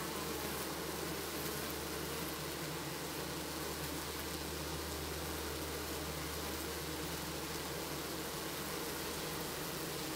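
Honeybees buzzing in a steady, unbroken hum, with a constant hiss under it.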